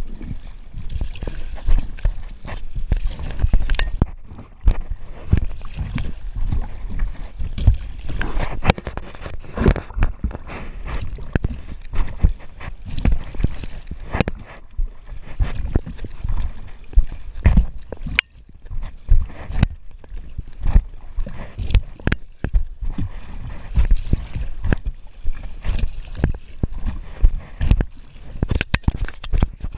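Kayak paddle strokes splashing and sloshing water right next to the microphone, with frequent irregular knocks and a heavy low rumble throughout.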